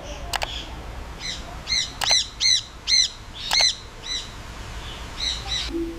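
A bird calling in a series of about nine short, high chirps, roughly two a second, with a few sharp clicks among them.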